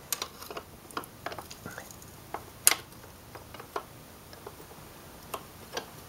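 Light, irregular metallic clicks and ticks of a flare wrench and 12 mm lock nut on a Yamaha FZ6 swingarm chain adjuster, as the wrench is held on the adjuster and the nut is turned by hand. One sharper click comes a little before the middle.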